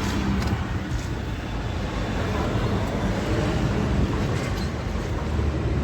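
Steady low rumble of motor-vehicle noise, with a couple of faint clicks in the first second.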